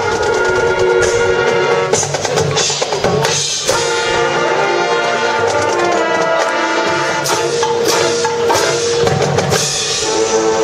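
High school marching band playing: sustained wind-instrument chords over sharp drum and percussion strikes.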